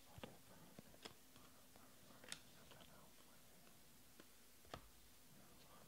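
Near silence with a few faint ticks from Panini Prizm baseball cards being slid off the top of a hand-held stack.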